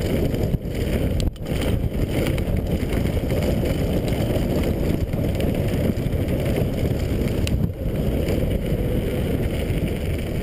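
Wind buffeting the microphone and tyres rumbling over hard-packed dirt and gravel as a downhill mountain bike rides fast down the trail. The noise is steady and low, with three brief dips.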